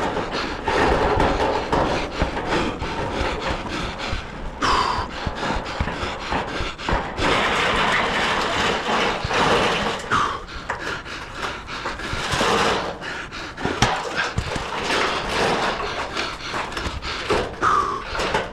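Irregular knocks and clatter of long metal roofing panels being handled and moved on the roof, over a steady rushing noise, with a few brief squeaks.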